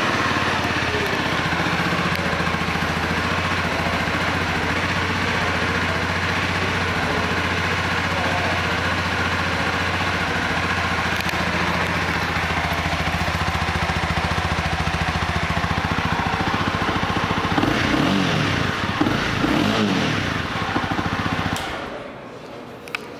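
Honda CBR300R's single-cylinder engine idling steadily just after starting. Near the end it is revved a few times, then shut off.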